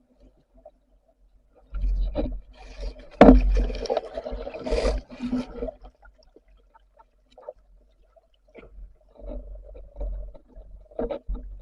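Muffled water noise and knocks picked up in the water while spearfishing, in irregular bursts with a deep rumble. The loudest is a sharp knock about three seconds in, followed by quieter bursts near the end.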